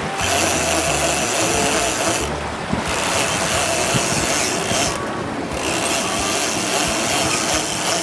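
A catamaran under way: a steady engine-like rumble with the hiss of wind and water. The hiss drops out abruptly twice, about two and five seconds in.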